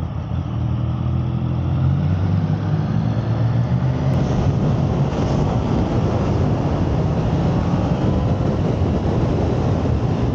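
Motorcycle engine pulling under acceleration, its pitch rising a little over the first few seconds, with a rush of wind and road noise building as speed rises.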